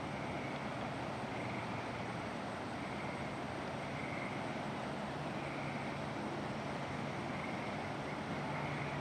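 Steady outdoor background noise: an even rushing hiss with a low rumble, and a faint high note recurring every second or so.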